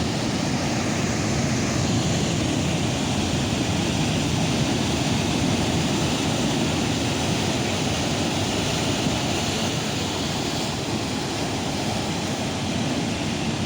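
Steady, unbroken rushing noise of wind and water, heaviest in the low end.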